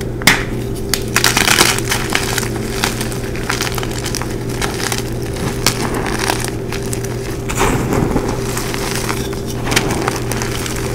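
Blocks of gym chalk crushed and crumbled by hand into loose powder: a run of irregular crunches and crackles, with a sharp crack just after the start as a block breaks in the hands.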